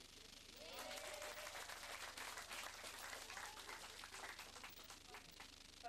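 Applause: a group of people clapping. It starts about a second in and thins out near the end.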